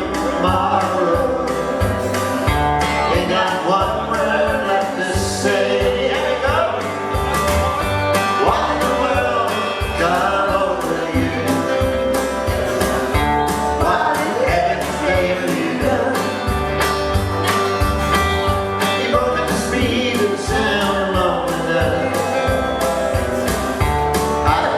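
Live country music with singing over a steady bass-and-drum beat.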